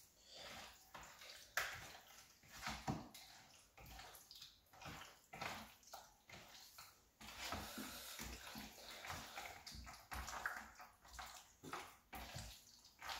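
Hands squeezing and mixing raw chicken pieces in a thick marinade in a bowl: faint, irregular wet squelching.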